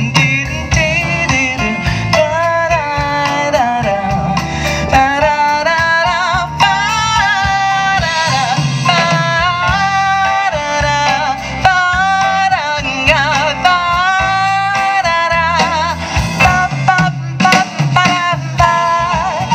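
Live jazz band playing: a woman sings into a microphone over violin, electric bass, drums and keyboard.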